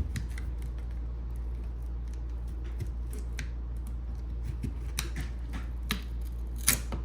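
A pry tool working along the edge of a Nokia G21's glued back cover, with scattered sharp clicks and snaps as the cover separates, the loudest near the end.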